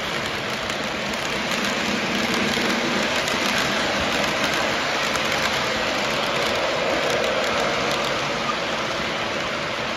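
Model train cars rolling past close by on metal track: a steady rolling rumble and rattle of wheels on rails, a little louder in the middle as the freight cars pass nearest.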